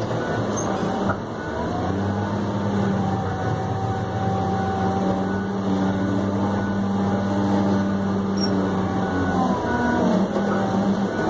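New Holland RG140B motor grader's diesel engine running steadily under load, heard from inside the cab. Its pitch dips and comes back up briefly near the end.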